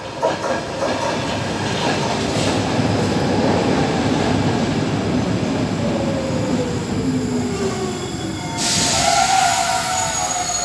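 Stockholm metro C6 train pulling into the platform and slowing to a stop: wheels and running gear rumbling on the track, with a whine that falls in pitch as it slows. About eight and a half seconds in, a sudden loud hiss sets in, with brake squeal near the end as it comes to a halt.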